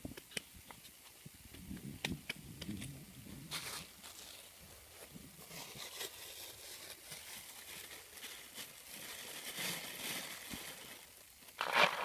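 Hand handling noises around a sand-buried foam-box bird trap: scattered light clicks and soft scratchy rustling, with a louder rustle near the end as a handful of rice grains is taken up for bait.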